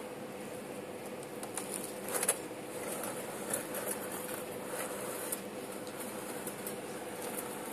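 A 1.9-scale RC rock crawler driving over rubble: a steady electric-motor whine with scattered clicks and knocks as the tires and chassis meet the rocks.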